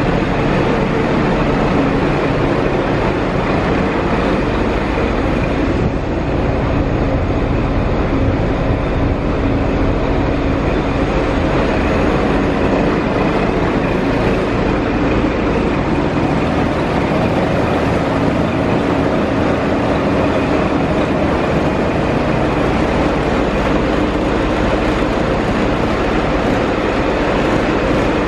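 Scania truck's diesel engine with HPI unit injectors running steadily at idle.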